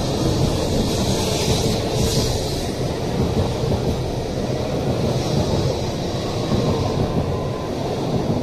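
N700A Shinkansen train pulling out of the station, its cars rolling past close by with a steady rumble.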